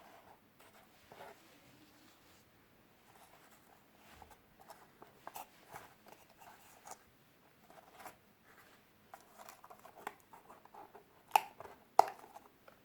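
Scattered light taps, scrapes and rustles of hands working with cardboard craft pieces, with two sharper clicks near the end.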